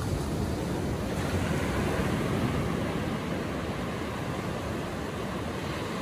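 Ocean surf breaking and washing up a beach, a steady rush that swells a little about a second in and eases off in the second half.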